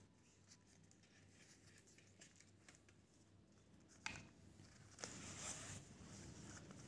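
Mostly near silence, then faint handling of a clear plastic phone case and the black cardboard box packaging: one small click about four seconds in, then soft rustling.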